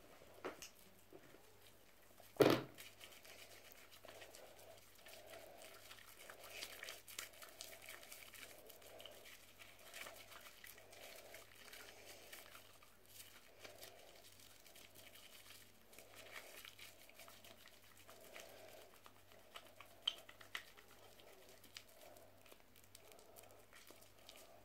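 Wet bath sponge squeezed repeatedly in thick soap foam close to the microphone, the bubbles crackling and popping, with one sharp knock about two and a half seconds in.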